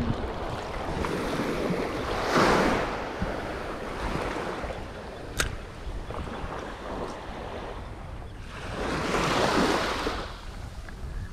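Ocean surf breaking on a sandy beach: two waves surge and wash in, one about two seconds in and another near the end, over a steady rush of water and wind on the microphone. A single brief sharp click falls about five seconds in.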